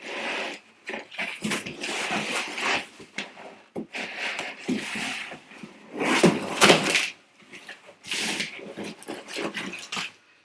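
Popcorn packing filler rustling and crunching in a cardboard box as hands dig through it, in repeated bursts, loudest about six to seven seconds in.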